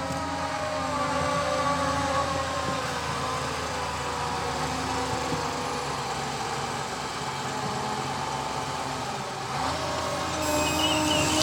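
Ropa Euro Tiger sugar beet harvester's V8 engine and drive running steadily with a whining hum, its pitch easing down over the first few seconds.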